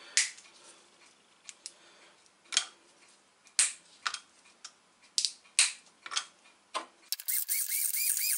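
Sharp clicks and knocks as whole spices are dropped into an electric blade coffee grinder and its lid is handled. About seven seconds in, the grinder starts running, its blade grinding the whole cloves, cinnamon and nutmeg with a fast rattling buzz.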